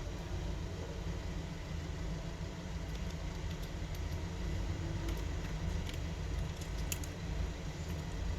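Steady low background hum, with a few faint small clicks from small phone parts being handled.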